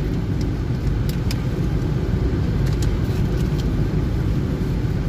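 Car driving slowly, heard from inside the cabin: a steady low rumble of engine and road noise, with a few faint ticks.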